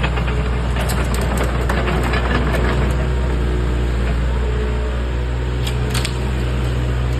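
Hitachi ZX70 excavator's diesel engine running steadily, with scattered sharp clicks in the first few seconds and a couple more about six seconds in.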